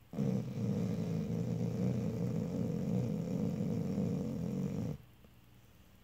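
Vizsla snoring in its sleep: one long, rough, low snore that starts suddenly and lasts about five seconds before cutting off abruptly.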